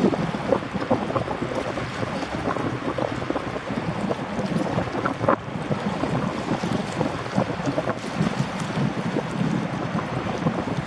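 Boeing 929 Jetfoil running foilborne on its gas-turbine-driven water jets: a steady rushing noise with wind buffeting the microphone.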